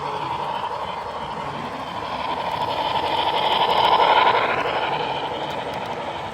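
HO-scale model train running past, growing louder to a peak about four seconds in and then fading away.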